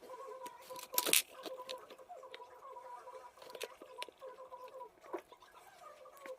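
Small clicks and rustles of jewelry and its packaging being handled, with a louder crinkle about a second in, over a faint steady tone.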